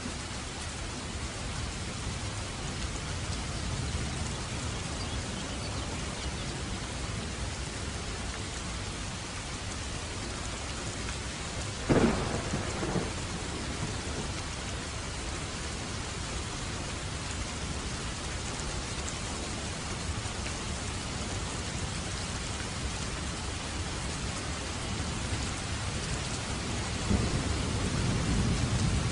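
Steady rain falling, with a sudden clap of thunder about twelve seconds in and low thunder rumbling up near the end.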